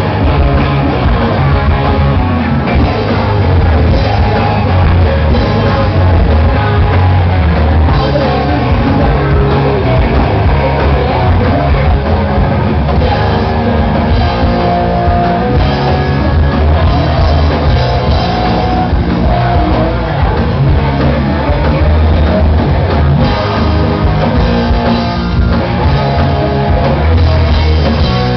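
Rock band playing live, loud and distorted, with electric guitars, bass, drum kit and a singer. The upper frequencies are cut off, as in a small camera's recording.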